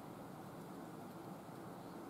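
Faint steady hiss: room tone, with no distinct scraping strokes.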